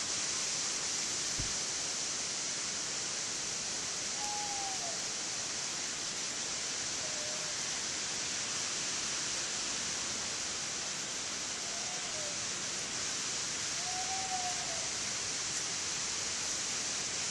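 Steady, even outdoor background hiss, strongest in the high range, with four faint short rising-and-falling calls spaced a few seconds apart.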